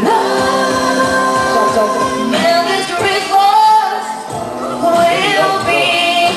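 Singers running through a song over an amplified backing track during a sound check, with long held notes.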